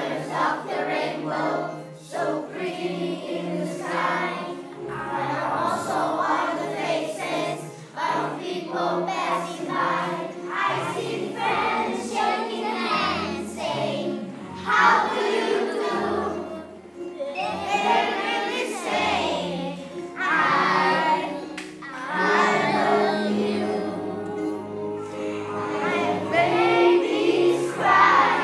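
A group of children singing a song together in unison, with musical accompaniment underneath.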